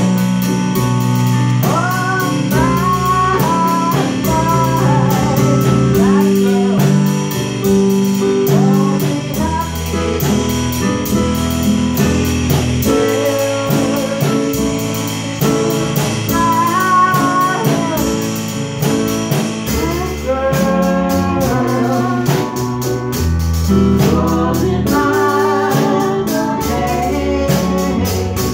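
Live band playing: a woman singing over two electric keyboards, with a drum kit keeping a steady beat on the cymbals.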